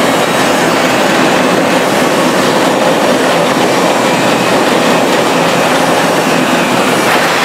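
Rotary drum compost sieve running, its perforated steel drum turning with a steady, even mechanical noise as lumps of compost tumble inside it and drop out of the end.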